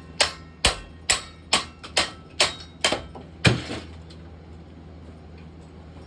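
A tool hammering on a ceiling fan, about two hard blows a second, eight in all. The last and loudest comes about three and a half seconds in, and the blows then stop.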